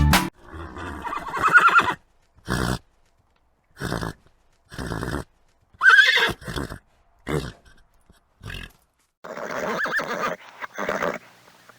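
A horse whinnying, in a series of separate short calls split by dead-silent gaps. The longest call, about six seconds in, has a pitch that wavers and then falls.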